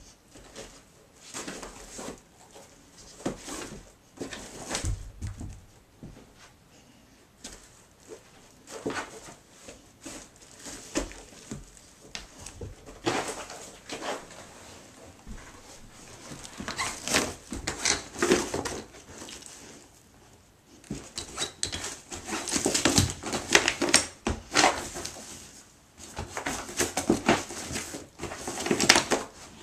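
Golden retriever rummaging through a packed suitcase: irregular rustling, scraping and clattering of clothes, shoes and cables being pushed about and pulled out. It comes in bursts with short pauses, busier and louder in the second half.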